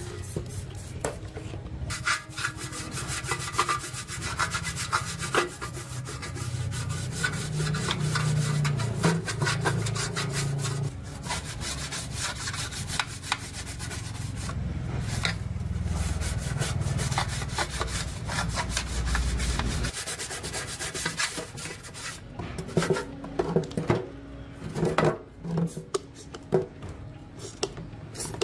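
Rapid, repeated scraping strokes of a tool or abrasive rubbing against a surface.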